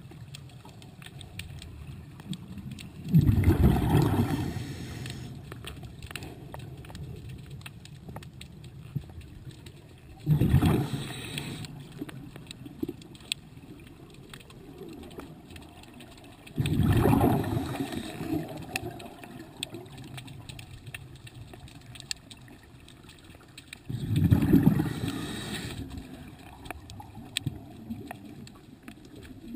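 Scuba diver's regulator underwater: four exhalations, each a burst of bubbles lasting one to two seconds, about seven seconds apart.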